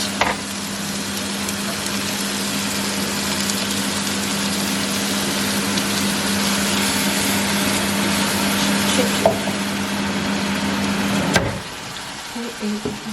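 An electric kitchen appliance running: a steady low motor hum under a loud, even hiss, both cutting off suddenly about eleven seconds in as it is switched off.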